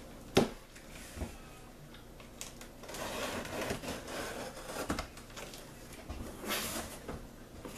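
Packing tape on a cardboard box being slit with a small cutter and the flaps pulled open: scraping and rustling of tape and cardboard, with a sharp click about half a second in.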